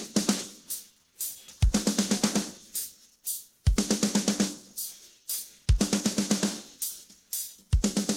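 Isolated rock drum-kit track: a bass drum and cymbal crash land about every two seconds, each followed by a fast run of snare hits, with brief gaps between the phrases.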